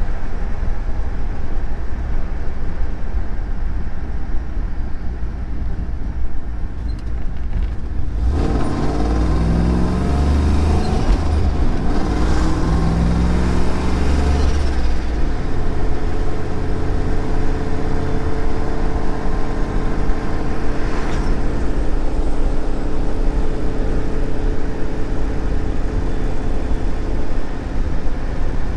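Turbocharged Pontiac GTO V8 running with a low rumble, then pulling hard about eight seconds in, its pitch climbing in steps for several seconds, before settling into a steady drone.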